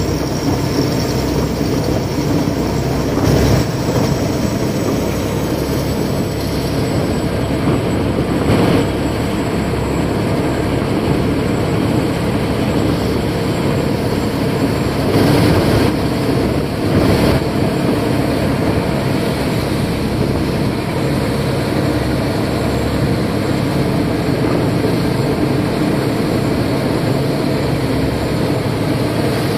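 Khlong Saen Saep canal express boat's diesel engine running at cruising speed, a loud steady drone mixed with water churning in the wake, heard from the open rear deck. It swells briefly louder a few times.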